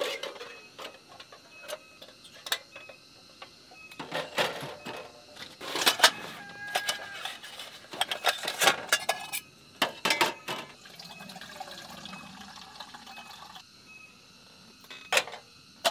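Metal camping cookware and a portable gas stove being handled on a table: repeated clinks, clicks and knocks, some with a short metallic ring. A few seconds of water pouring near the end.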